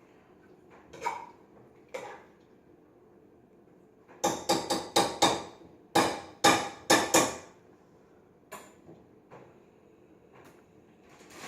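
A run of about ten sharp, hard clacks in quick succession, roughly three a second, in the middle, with a few fainter taps before and after.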